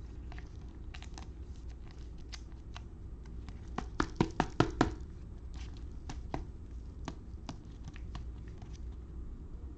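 Trading cards and their packaging being handled on a table: scattered light clicks and rustles, with a quick run of about five sharp taps about halfway through.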